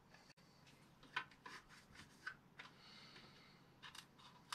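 Near silence: room tone with a few faint clicks and rustles, the first about a second in and another near the end.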